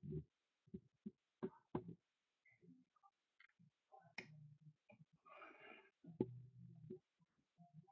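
Faint, scattered clicks at an uneven pace, from someone working a laptop. A soft rustle comes about five seconds in.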